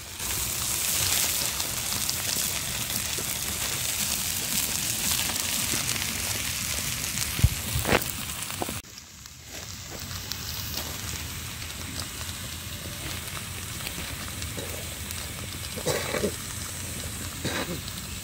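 Petrol-fed fire burning chicken in an iron wok: a steady crackling sizzle with a few sharp pops. The sound drops quieter about nine seconds in.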